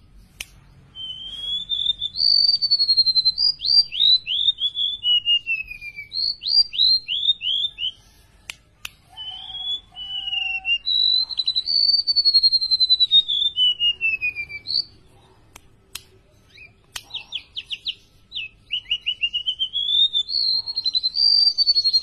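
Golden-bellied gerygone (remetuk laut) singing: phrases of high, thin whistled notes, some as runs of quick falling notes and others as longer slurred glides rising and falling in pitch, with brief pauses between phrases.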